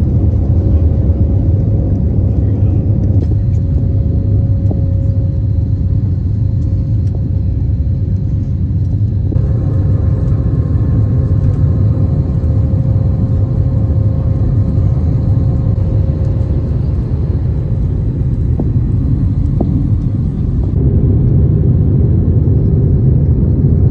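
Airbus A320 cabin noise during the climb: a loud, steady rumble of the jet engines and airflow heard from a window seat over the wing, with a faint steady whine above it. The rumble shifts abruptly about nine seconds and twenty-one seconds in.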